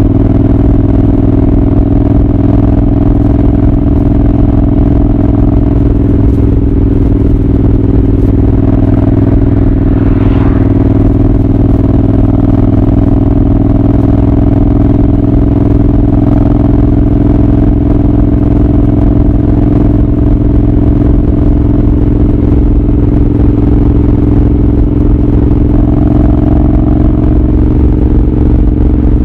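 Royal Enfield Continental GT 650's parallel-twin engine and exhaust running at a steady cruising speed, its pitch holding nearly constant.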